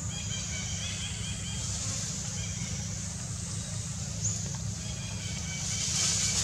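Outdoor ambience: a steady high hiss and a low rumble, with two short runs of faint high chirps, one early on and one near the end.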